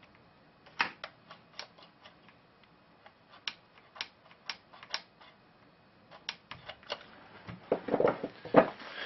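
Irregular sharp clicks and light knocks of hard objects being handled, a couple per second, then a denser, louder cluster of clattering handling noise near the end.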